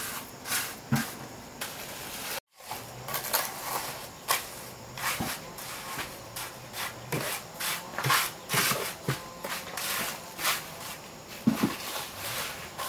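Masonry hand work on brick and cement mortar: a trowel scraping and tapping in a run of irregular short scrapes and knocks, one or two a second, broken by a brief cut about two and a half seconds in.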